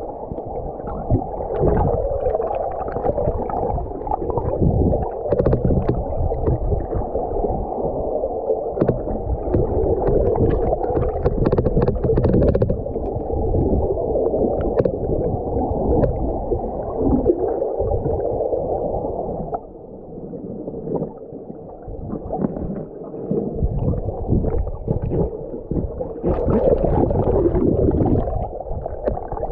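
Fast river current heard underwater through a submerged camera: a muffled rush and gurgle with scattered sharp ticks. It eases off about two-thirds of the way through, then swells again near the end.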